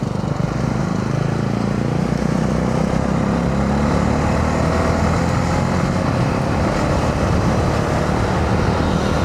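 Honda CB125R single-cylinder 125 cc engine running under way, heard from the riding motorcycle, its note shifting a little in pitch as the speed changes, over steady road and air noise.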